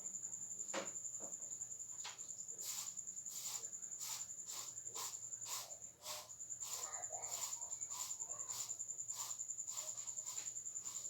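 A cricket chirping in a steady high, pulsing trill that breaks off briefly about six seconds in. Over it comes a regular run of sharp taps or clicks, about two a second, from about two seconds in.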